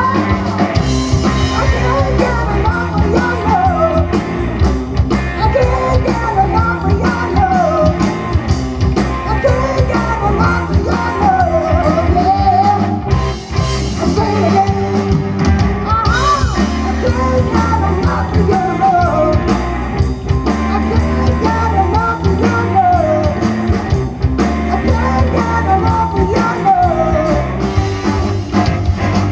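Live rock band playing: electric guitars, bass guitar and drum kit, with a man singing the lead vocal.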